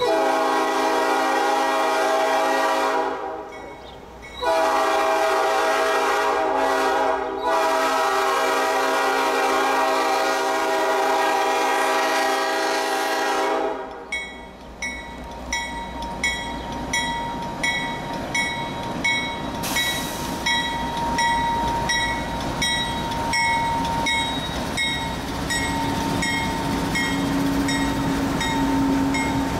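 Norfolk Southern GE Dash 9 diesel locomotive blowing its multi-note air horn in long blasts for about the first fourteen seconds, with a clear break about three seconds in. Then the freight rolls past, its wheels clicking over the rail joints in a steady rhythm, with a thin wheel squeal partway through.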